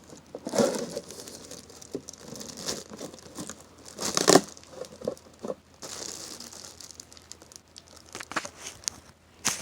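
Packaging crinkling and rustling as it is pulled off a boxed fan, with scattered light knocks and a louder rustle about four seconds in.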